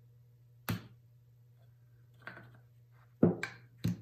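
Steel claw hammer tapping a small nail into a thin wooden toy-kit part on a wooden workbench. About five light strikes come unevenly spaced, the last three close together near the end, the loudest a little past three seconds in.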